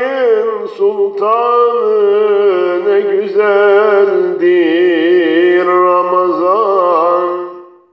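A man singing a Turkish ilahi (religious hymn) solo and unaccompanied, in one long held phrase with wavering, ornamented pitch. The line fades out shortly before the end.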